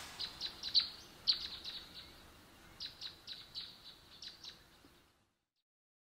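Small birds chirping: a string of short, quick chirps, each sliding down in pitch, in a few clusters that thin out and stop about five seconds in.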